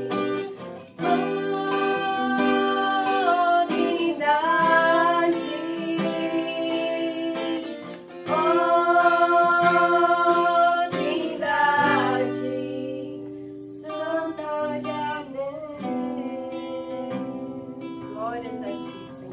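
Acoustic guitar playing chords under a voice singing long held notes in a slow song.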